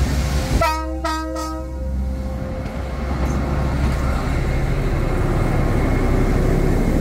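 An Alsthom diesel locomotive's horn sounds once about half a second in, lasting about a second. The engine's steady low running carries on after it.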